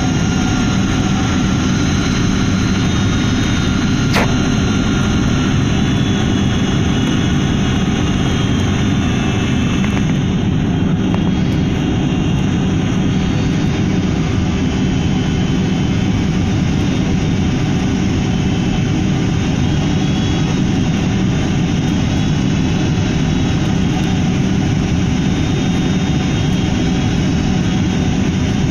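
Steady cabin noise inside a Boeing 767 airliner on final approach: jet engines and rushing air, even and unbroken, with one brief click about four seconds in.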